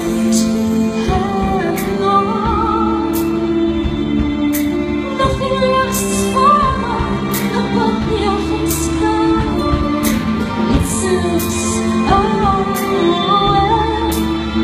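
A woman singing a slow ballad with vibrato into a microphone, accompanied live by cello, violin and keyboard.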